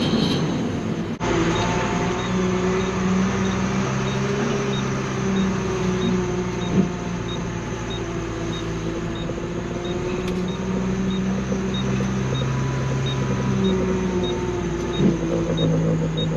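Garbage truck's engine running as the truck drives, heard from inside the cab, its drone shifting up and down in pitch with speed. A faint regular ticking, about one and a half a second, runs under it.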